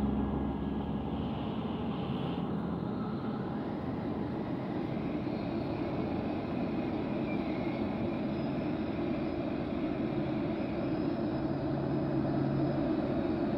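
Steady industrial ambient drone from a film soundtrack: a hollow, rumbling wash of noise like distant machinery. A low hum under it fades out about a second in.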